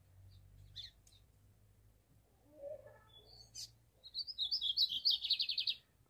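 Lined seedeater (bigodinho) singing: a few scattered high chirps, then about four seconds in a quickening run of high notes that runs into a fast trill. A song in which this bird mixes in phrases of the ultramarine grosbeak (azulão).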